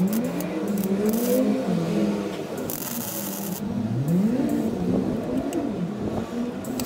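MIG welder laying tack welds on a patch panel: short bursts of crackling hiss, a brief one about a second in and a longer one about three seconds in. Under it, an engine runs, rising and falling in pitch.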